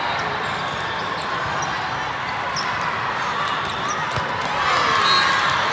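Echoing indoor gym noise during a volleyball match: a steady mix of players' and spectators' voices with scattered ball bounces and short knocks on the court.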